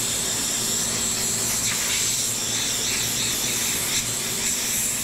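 Compressed air blowing from an air nozzle in one steady hiss, blasting dirt off an air compressor's intake filter parts.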